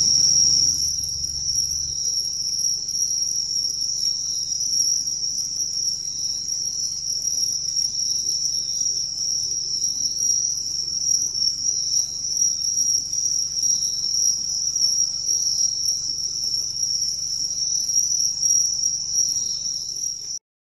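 Crickets chirping in a steady, continuous high trill, with fainter intermittent chirps of other insects over it and a faint low hum underneath.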